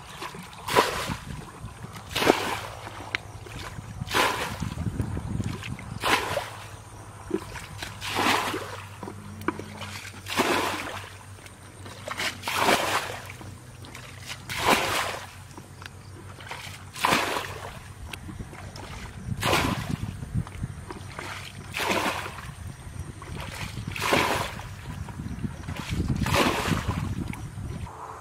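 Water splashing as a plastic bucket is dipped into a shallow muddy ditch and emptied, about one splash every two seconds: bailing the water out.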